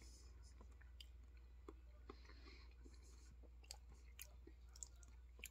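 Faint chewing of noodles, with a few small sharp clicks of a metal fork against the plastic food tray, over a low steady hum.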